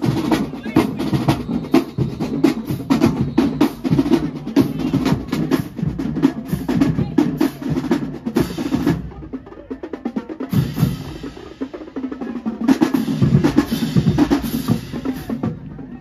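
Marching band drumline playing a cadence: rapid snare strokes over bass drum hits. It breaks off about nine seconds in and starts again about three seconds later.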